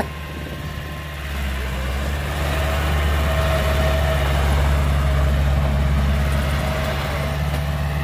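Heavy diesel engine of earthmoving machinery running steadily, growing louder about a second and a half in, with a faint steady whine above it over the last few seconds.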